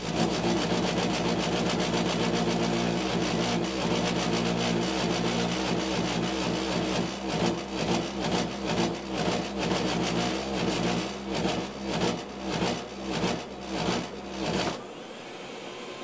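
Takagi T-K3 tankless gas water heater's burner firing: a loud, steady humming drone starts abruptly, begins to pulse about one and a half times a second about halfway through, then cuts off suddenly near the end, leaving the quieter steady whoosh of the unit's fan.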